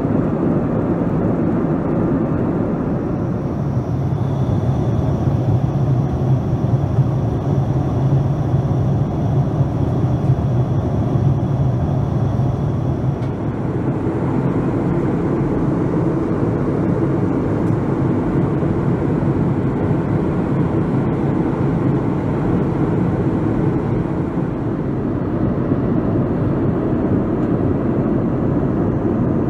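Steady in-flight cabin noise of a Boeing 787-9: a dense rush of airflow and engine noise heard from inside the cabin. A faint high whine sits over it for the first half and stops about halfway through, where the noise changes slightly in character.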